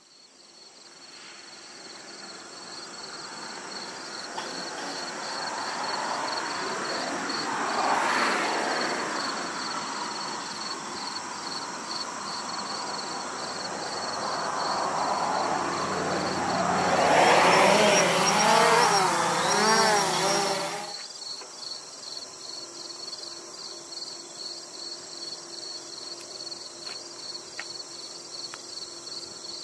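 Crickets chirping steadily in a high, pulsing band. Over them, a louder rushing rumble builds twice, most strongly about seventeen to twenty seconds in, and cuts off suddenly about twenty-one seconds in. After that the chirping goes on with a faint steady low hum.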